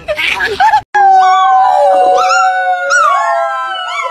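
A small dog howling in long, wavering notes, with a woman's voice howling or singing along. It follows a brief snatch of small-dog yapping that cuts off abruptly just under a second in.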